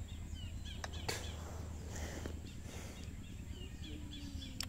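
Outdoor ambience of small birds chirping repeatedly over a steady low background hum, with a few light clicks about a second in.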